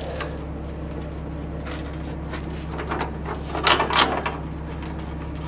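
Metal clinks and knocks of a threaded drive-shaft support tool being fitted and turned under a heavy truck to hold the dropped drive shaft. There are a few light knocks, then a quick cluster of sharp clinks a little under four seconds in. A truck engine idles steadily underneath.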